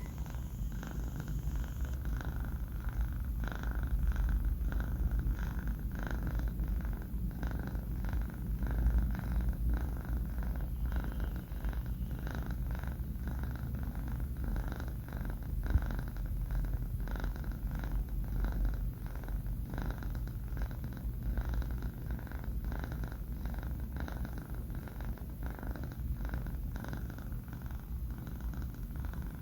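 A young kitten purring in its sleep: a continuous low rumble that swells and eases in a regular rhythm with its breathing.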